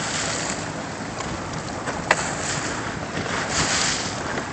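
Wind buffeting the microphone over open water, with waves lapping, and a single sharp click about two seconds in.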